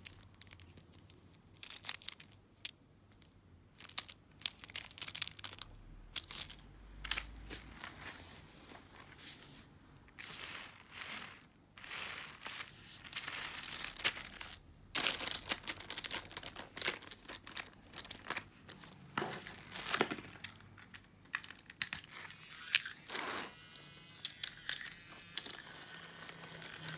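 Wooden toy Shinkansen train cars being handled and coupled together: an irregular run of small clicks and knocks, with stretches of scraping or rustling in the middle and a faint rolling sound near the end.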